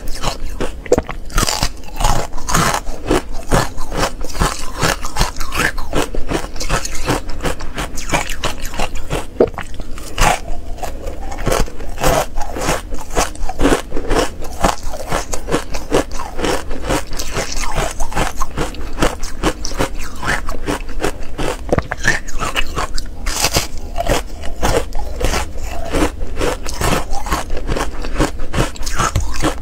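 Close-miked crunching and chewing of matcha-powder-coated ice, a dense run of rapid, irregular crunches.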